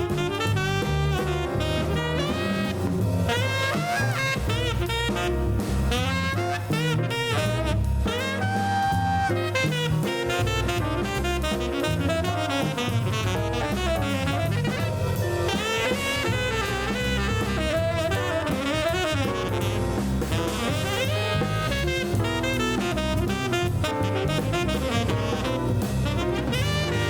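Instrumental jazz music with saxophone, brass and drum kit, playing steadily.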